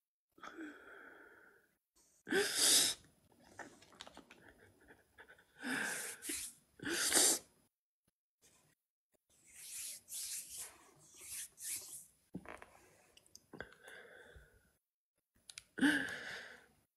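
A woman crying: sharp sobbing breaths and sniffs every few seconds, with quieter breathy catches between them.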